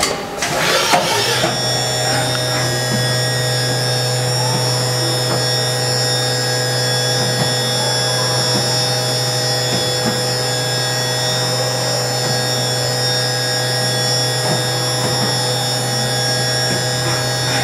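Haas VF2SS vertical machining center's direct-drive spindle spinning up in the first second or so, then holding a steady whine of several constant tones while the demo program runs.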